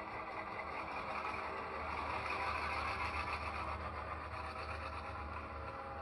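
Diesel engine sound from an HO scale model EMD GP9 locomotive's sound system, running steadily with a low hum as the train starts to pull away, and a little louder for a couple of seconds in the middle.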